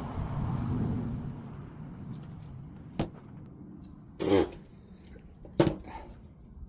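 Hand tool and small parts being handled on a workbench: one sharp click about three seconds in and two louder short clunks later, over a low rumble that fades during the first two seconds.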